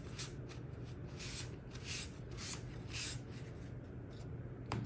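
A wad of paper towel rubbing over a balsa sheet to wipe off sprayed CA glue accelerator, a soft swish with each stroke, about two a second. A sharp tap near the end.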